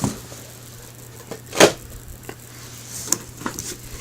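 Cardboard model kit boxes being handled and set down: a few light taps and knocks, with one louder brief rustling slide about one and a half seconds in, over a steady low electrical hum.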